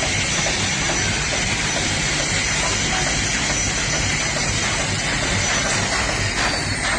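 Helicopter turbine and rotor running loud and steady: a high whine over a low rhythmic beat. Near the end, the high whine starts to fall in pitch, with a few sharp knocks.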